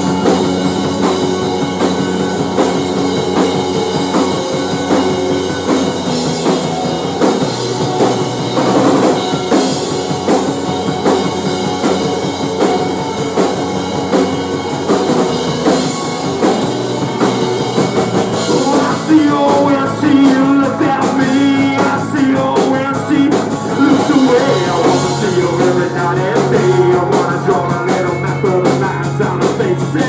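Rock band playing live: drum kit, electric guitars and bass, with a male voice singing over them in the latter part.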